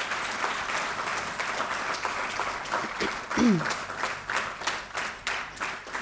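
Audience applauding: a dense, steady applause that thins toward the end into more separate claps. A short voice is heard briefly a little past the middle.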